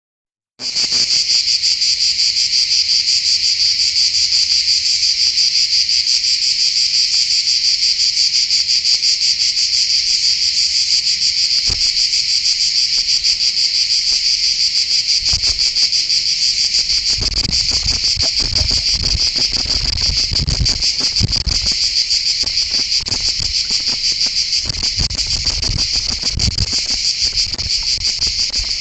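Loud, steady insect chorus: a dense, high, pulsing buzz that cuts in abruptly about half a second in and holds without a break. From about halfway, irregular low thumps and rumbles break in under it.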